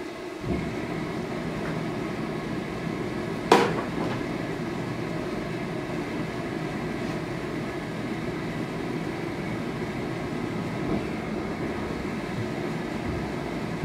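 Multi-burner gas forge lit and running, its burners giving a steady rushing sound that comes up about half a second in. A single sharp bang sounds about three and a half seconds in.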